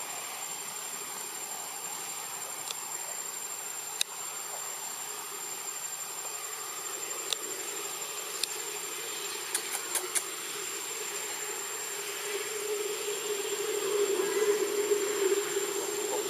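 Steady outdoor hiss with a constant thin high-pitched insect whine and a few light clicks; from about twelve seconds in, a motor vehicle engine running in the distance grows louder.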